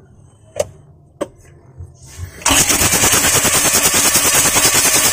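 A Mazda Bongo's four-cylinder diesel engine turned over on its starter motor with the glow plugs removed, cranking without starting to force diesel out of the glow plug holes while bleeding the fuel system. Two sharp clicks come first, then the cranking starts abruptly about two and a half seconds in as a loud, rapid, even pulsing.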